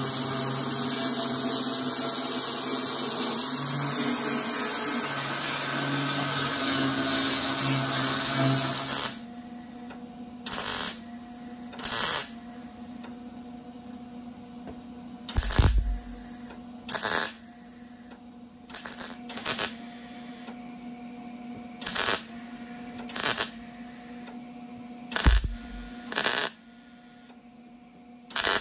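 Angle grinder running steadily, grinding down the weld seam on a thin steel door-skin patch panel, then stopping about nine seconds in. After it come about ten short wire-feed (MIG) welding tacks, each a crackling burst of about half a second to a second, spaced a second or two apart, with a steady hum between them.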